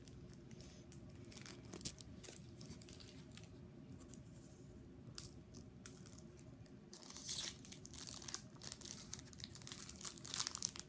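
A Pokémon TCG booster pack's foil wrapper crinkling and tearing as it is worked open by hand, with a louder stretch of crinkling about seven seconds in.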